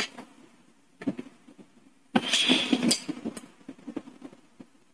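Wooden shape-sorter pieces handled and set onto the pegs of the wooden board: a few light clicks and knocks, with a brief scraping sound about two seconds in.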